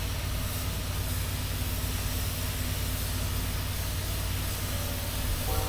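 Pressure washer running steadily, its low motor hum under a steady hiss of high-pressure water spray while the patio is rinsed.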